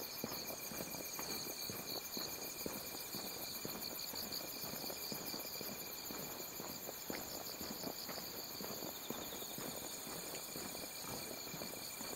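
Night insects (crickets and katydids) chirping in a steady chorus of high, pulsing trills, with faint irregular ticking and rustling underneath.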